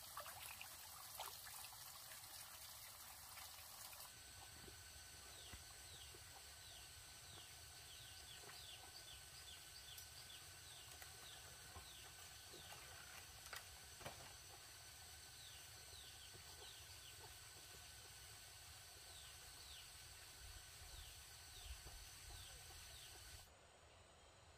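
Faint outdoor ambience: water trickling for the first few seconds, then steady high-pitched insect drone with a bird giving a long run of short falling chirps. It all drops away near the end.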